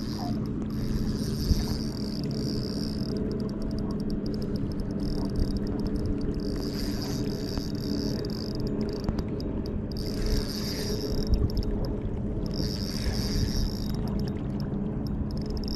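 A boat motor hums steadily throughout. Over it a spinning reel is cranked in several separate bursts of a second or two each, a fine high whirring.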